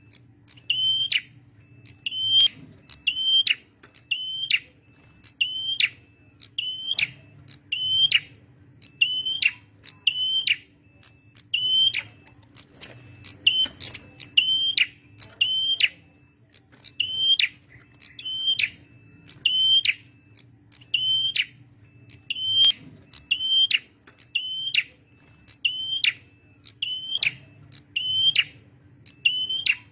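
Male prenjak merah (a tailorbird) singing, repeating one short, sharp, high note a little more than once a second in a long, steady series.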